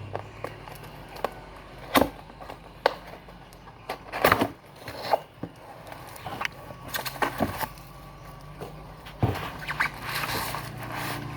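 Packaging of a laptop screen panel being handled and opened: irregular sharp clicks and knocks, with rustling near the end.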